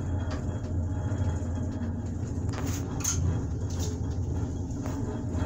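Steady low rumble inside a moving gondola cabin riding its cable, with a few light clicks and rattles in the second half.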